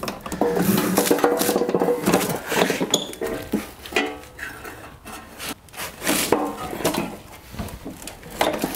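A stainless steel pan set down with a ringing metallic clatter, then a string of knocks, scrapes and rattles as a Honda walk-behind mower is tipped over onto its side.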